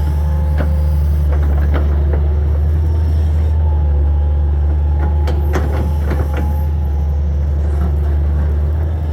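Hitachi 225 excavator's diesel engine running steadily with a steady whine over it. Scattered knocks and clatter come from the wood and debris being moved, with a cluster of them just past the middle.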